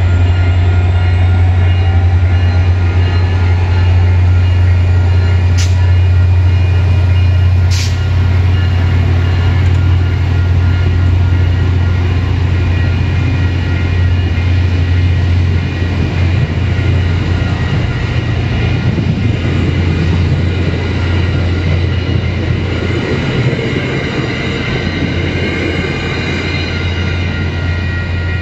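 MBTA commuter rail passenger coaches rolling steadily past over a street grade crossing behind a diesel locomotive, with the crossing signal's bell ringing steadily throughout. The sound eases off slightly near the end as the rear cab car passes.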